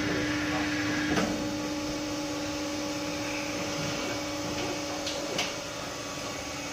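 Plastic pallet hot plate welding machine running through its cycle: a steady machine hum, with a second, higher tone joining after a click about a second in. Two sharp clicks come a little after five seconds.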